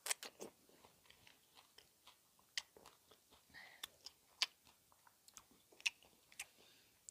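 A bite into a soft slice of peeled kiwi fruit in the first half second, then faint chewing with scattered wet mouth clicks and smacks, close on a lapel microphone.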